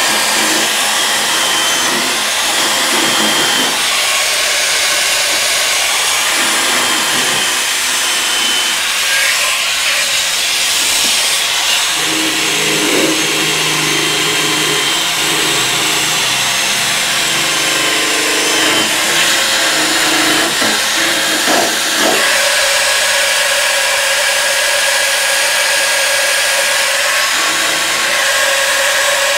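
Corded handheld power tool running continuously with a strong hiss, worked against the steel bed rail of a Ford F250 pickup to clean off rust. Its tone shifts a little in the middle stretch as it is pressed in and moved along the metal.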